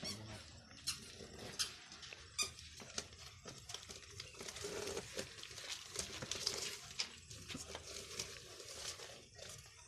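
Cardboard cake box being handled and opened by hand: rustling and scraping of the cardboard flaps, with a few sharp clicks in the first few seconds.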